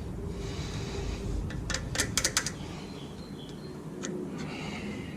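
A quick run of five or six sharp clicks about two seconds in, with a couple of fainter taps later, from hand tools and parts being handled during work on a front brake caliper.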